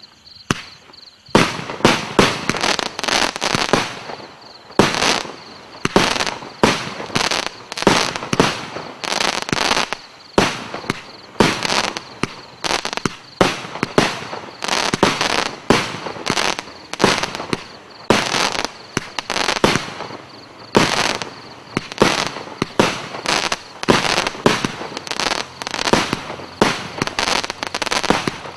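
A 50-shot firework cake firing in rapid succession, about two sharp bangs a second, each shot trailing off in crackles.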